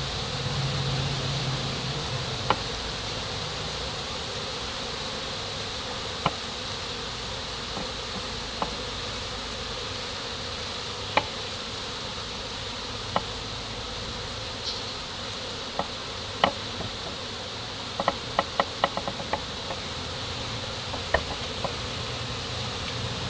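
Honeybees buzzing steadily around the hive entrance, a large number of them hovering and flying in front of the box. Sharp clicks come every few seconds, with a quick run of them about three-quarters of the way through.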